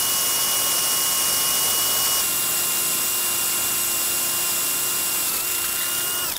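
Cordless drill boring a bolt hole through two stacked wooden boards, the motor whining at a steady pitch that drops slightly about two seconds in as it works under load, then stopping suddenly near the end.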